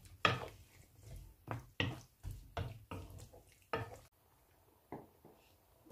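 A spatula stirring vegetables in coconut milk in a large non-stick pan, each stroke a wet scrape and knock against the pan, about two a second. The stirring stops about four seconds in, with one more knock a second later.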